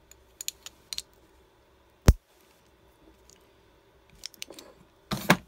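Handheld RJ45 network-cable crimping tool closing on a clear plastic RJ45 plug as it is crimped onto the cable: a few small clicks and rattles, one sharp loud snap about two seconds in, and a couple more clicks near the end.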